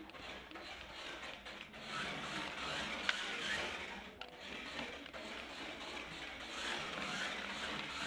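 Small 1:24 scale 4WD electric RC car running on a hardwood floor: a faint whirring of its motor and gears with tyre noise, swelling and fading with the throttle, and one sharp click about three seconds in.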